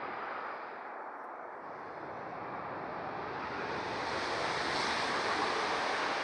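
Eurofighter Typhoon's twin EJ200 turbofan engines running, a steady rushing jet noise that dips about a second in and then grows louder.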